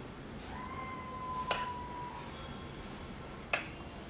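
A metal spoon clinks twice against the dish, about two seconds apart, as syrup is spooned over the cake. A faint steady high tone sounds in the first half.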